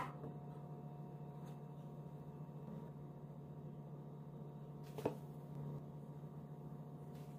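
A steady low hum with two knocks of a metal ladle and bowl against cookware as batter is ladled into metal rings in a frying pan: a small one at the start and a sharper one about five seconds in.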